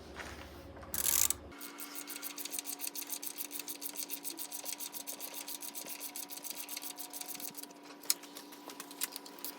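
Ratchet wrench clicking in an even run of about five or six clicks a second as mounting bolts are run in, over a steady hum, after a short loud rustle about a second in.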